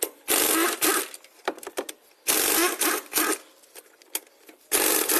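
A power wrench runs in three bursts of about a second each, a fast mechanical rattle as it undoes the bolts holding an engine bracket.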